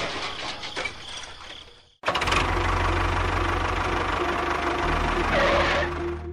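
The fading tail of a crash dies away to silence. About two seconds in, an engine-like motor sound starts abruptly and runs steadily with an even, fast pulse.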